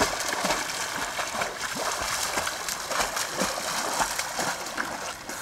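A swimmer splashing through lake water with arm strokes and kicks: a run of irregular splashes.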